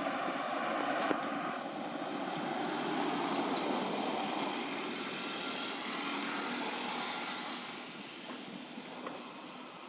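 Rushing engine noise of a passing vehicle, swelling over the first few seconds and slowly fading.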